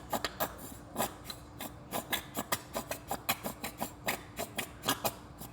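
A container of silver glitter being tapped and shaken to get the stuck glitter out, giving irregular sharp clicks and taps, a few per second.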